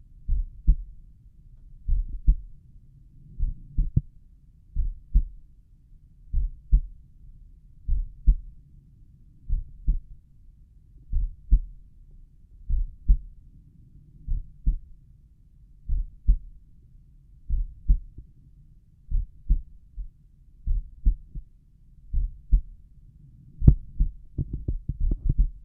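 A slow resting human heartbeat heard through a stethoscope at the tricuspid area: a paired lub-dub thump about once every one and a half seconds. Near the end a few brief crackling clicks sound over the beats.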